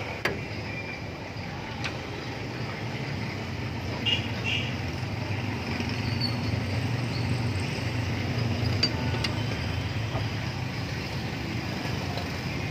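A few light metallic clicks and taps as a front brake caliper and its disc pads are handled by hand, over a steady low background hum.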